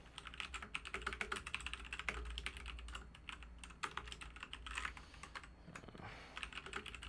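Typing on a computer keyboard: quick runs of clicking keystrokes with short pauses between words.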